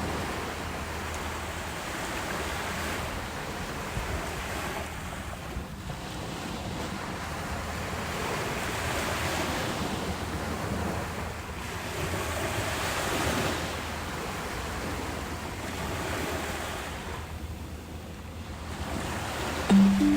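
Gentle ocean waves washing in, the surf noise swelling and fading every few seconds, with soft wind. Right at the end a few soft instrumental notes come in.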